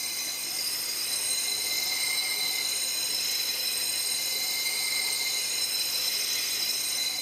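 DMT Dia-Flat diamond lapping plate pressed against the spinning stone wheel of a Tormek wet grinder: a steady, high-pitched scraping hiss with a thin whine. The plate is cleaning the wheel's dirty surface.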